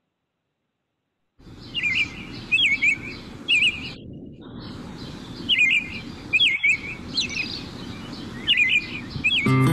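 Morning birdsong ambience: small birds chirping in short clusters of quick chirps over a steady low background. It starts after about a second and a half of silence, and acoustic guitar music comes in right at the end.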